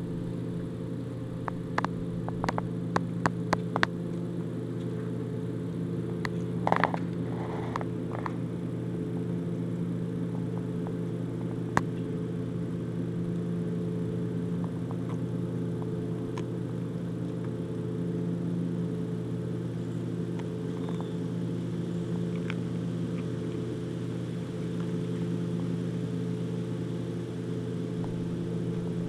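Husky chewing a whole raw chicken, crunching bones: a quick run of sharp cracks in the first few seconds, a louder crunch about seven seconds in and a single crack about twelve seconds in, then only faint ticks. A steady low machine hum runs underneath.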